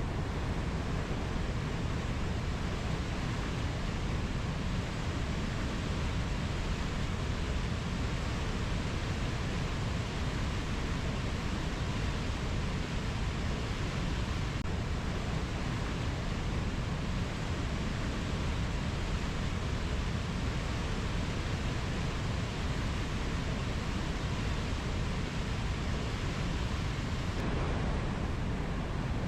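Steady rushing noise of a rainforest ambience recording, heaviest in the low end, even throughout with no distinct bird or insect calls standing out.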